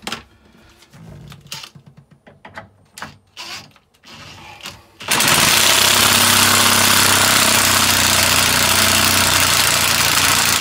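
Scattered metal clicks and knocks of hand-tool work on a copper pipe fitting, working an olive off with an olive puller. About halfway through, an electric motor starts abruptly and runs loud and steady with a rushing hiss and a low hum, then stops suddenly.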